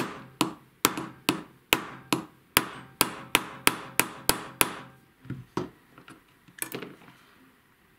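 Small hammer tapping a steel pin punch in quick light strikes, about three a second, driving the roll pin that holds the gas tube into an AR-15 gas block. The strikes stop a little under five seconds in and are followed by a few softer knocks as the hammer is laid down.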